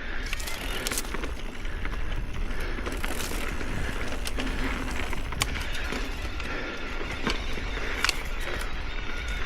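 Ibis Oso electric mountain bike riding a dirt trail: steady tyre noise over the ground with frequent sharp clicks and rattles from the bike over rough terrain.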